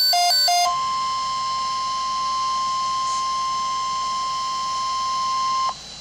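Weather alert radio receiving a NOAA Weather Radio alert: its alarm beeps rapidly between a low and a high pitch for a fraction of a second, then the broadcast 1050 Hz warning alarm tone sounds as one steady tone. The tone cuts off shortly before the end, leaving radio hiss, and signals that a severe thunderstorm watch message follows.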